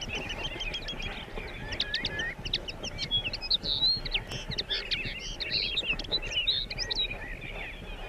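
A dense chorus of many birds chirping and trilling, full of quick whistled pitch glides that overlap throughout.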